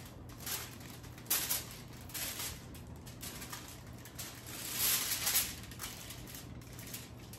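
Aluminum foil crinkling and rustling in irregular bursts as it is lifted and peeled back from a soft ground-turkey roll, with the loudest crackle about five seconds in.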